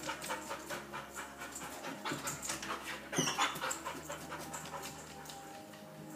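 Dog panting rapidly in quick, even breaths, fading after about four seconds as it moves away.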